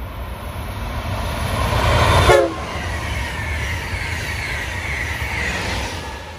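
First-generation Amtrak Acela Express high-speed trainset passing at speed: a rush of wheels and air that builds to a peak about two seconds in as the lead power car goes by, where a brief tone drops sharply in pitch. Then comes a steady rush from the passing coaches with a high whine that slowly falls, and it fades near the end.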